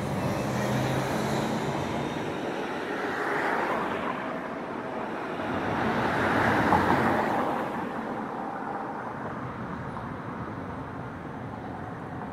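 Cars passing on the street one after another. There is a low engine hum at the start, then swells of tyre and engine noise, the loudest about six to seven seconds in, settling to a steady traffic hum.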